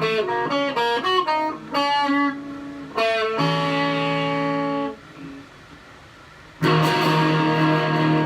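Stratocaster electric guitar played clean on the in-between neck-and-middle pickup setting, with a tone knob rolled all the way down: a quick run of picked single notes, then a chord held for about a second and a half and muted, and a strummed chord near the end left ringing.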